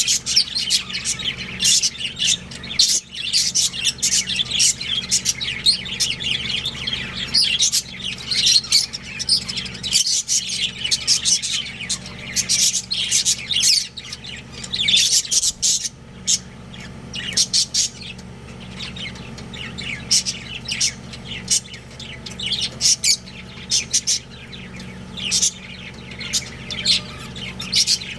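Several budgerigars chirping and chattering, with many quick high chirps overlapping in a busy, continuous stream that thins out briefly in places.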